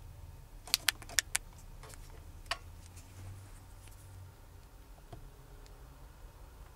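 Four quick sharp clicks within about a second, then one more, from a hand working the buttons and fold-out screen of a car's in-dash DVD head unit, over a low steady hum.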